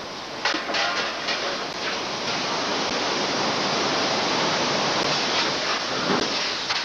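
Steady loud din of a shovel-forging shop, from its gas-fired forge furnace and machinery, with a few short metallic clanks in the first two seconds.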